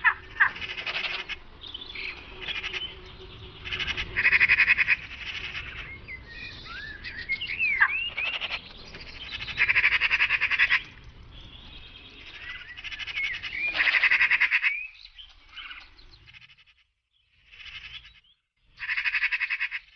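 Magpies chattering: harsh, rattling calls in bursts of about a second, several times over, with a few short whistled notes between them.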